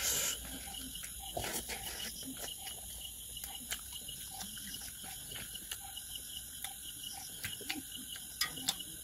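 Eating sounds: chewing and lip smacks as food is taken by hand, heard as faint, irregular wet clicks and smacks.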